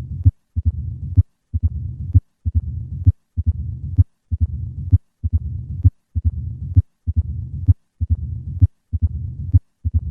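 Heart sounds of a patient with mitral stenosis, heard through a stethoscope. About once a second come sharp heart sounds, with a low-pitched, rumbling diastolic murmur filling the gap between them.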